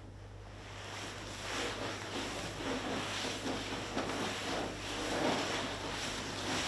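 A cloth-covered bag or cushion rubbed and squeezed by hand as Foley, making a rushing, wind-like sound. It fades in about half a second in and then swells and falls in uneven waves.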